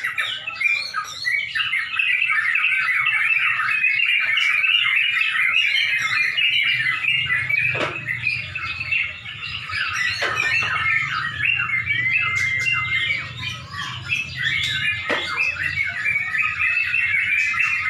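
Several yellow-vented bulbuls singing at once, a dense unbroken chatter of quick notes. A low hum runs underneath for several seconds in the middle.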